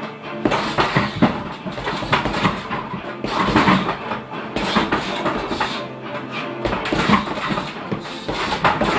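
Punches landing on a hanging heavy bag, irregular thuds at an uneven pace, over background music.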